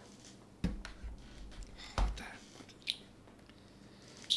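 Handling noise from a laptop power adapter cable being connected: a few scattered clicks and knocks, the first two with dull thumps.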